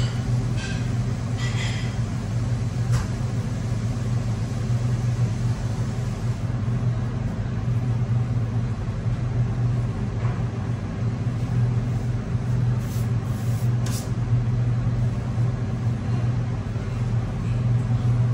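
Steady low hum of commercial kitchen machinery, with a few faint ticks near the start and again about two-thirds of the way through.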